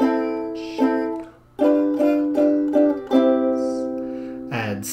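Strummed chords on a plucked string instrument, repeated about twice a second, with a short break about a second and a half in.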